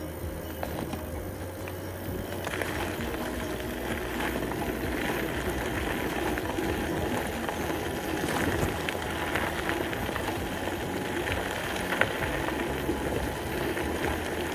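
An e-bike being ridden over a rough track: steady tyre noise with small rattles and ticks, over a low wind rumble on the microphone. The rolling noise gets louder about two and a half seconds in.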